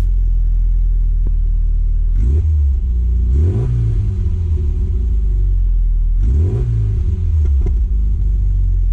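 Classic Mini's A-series four-cylinder engine idling, heard at the exhaust tailpipe, with the throttle blipped twice, about two and six seconds in, the revs rising and falling back to idle each time.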